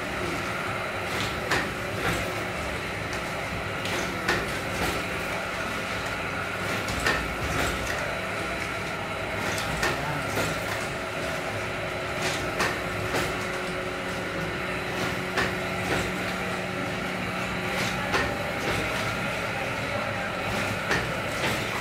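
Paper plate making machine running: a steady mechanical hum with sharp clacks every second or two.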